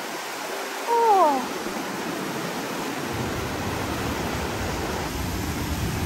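Whitewater rapids of a rocky river gorge rushing steadily. About a second in, a short pitched call glides downward over the water.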